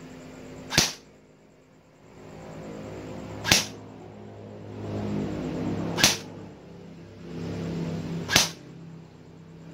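Airsoft electric rifle (AEG) firing single shots with 0.20 g BBs through a chronograph for an FPS test: four sharp cracks about two and a half seconds apart. A low hum rises in the pause before each shot.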